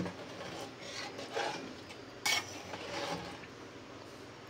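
A ladle stirring thick mutton curry in an open metal pressure cooker, soft scraping against the pot with one sharper clink a little over two seconds in.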